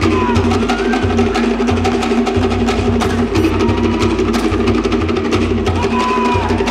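Cook Islands drum ensemble playing a fast drum-dance rhythm: rapid, dense strokes on wooden slit log drums (pate) over a pulsing deep drum beat.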